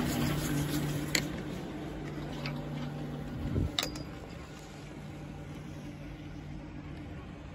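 A Poma double chairlift running: a steady mechanical hum from the bottom-station drive, fading as the chair climbs away from it. Two sharp clicks come about one and four seconds in, with a low thump just before the second.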